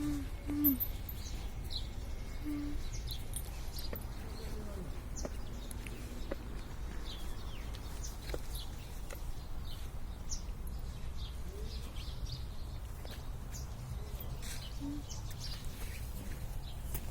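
Small birds chirping now and then, short high calls scattered through, over a steady low rumble.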